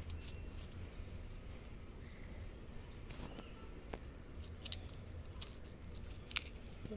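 A small knife scoring and cutting through the tough rind of a pomegranate, heard as scattered faint clicks and scrapes over a low steady rumble.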